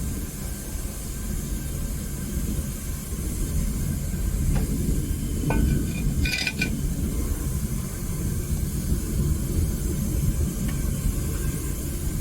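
Home-made propane burner firing a melting furnace with a steady low rush. A few light metallic clinks about four to six and a half seconds in.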